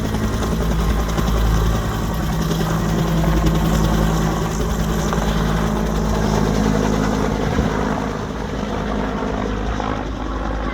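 Bell UH-1D Huey helicopter running at speed, its two-bladed main rotor beating in a fast steady rhythm over the turbine's steady hum; the sound eases off slightly over the last few seconds.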